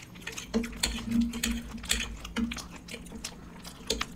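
People eating quickly: irregular small clicks and smacks of chewing and of utensils on plates, with a faint low hum from about half a second in to about a second and a half in.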